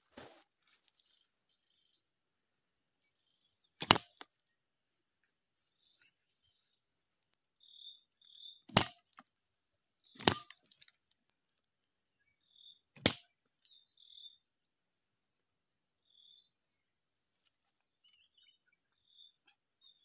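Steady high-pitched drone of insects, with four sharp clacks of bamboo pieces knocking together: about 4, 9, 10 and 13 seconds in.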